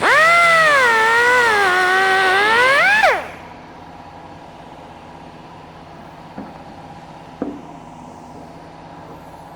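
Die grinder with a cut-off wheel cutting through a fiberglass cowl: a high whine that sags in pitch under the load of the cut, rises again as the wheel comes free, and stops about three seconds in. Two light knocks follow a few seconds later.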